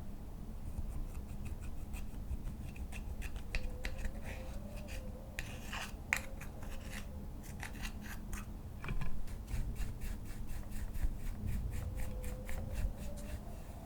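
Slime being squished, stretched and folded by hand, giving a run of small, irregular sticky clicks and crackles.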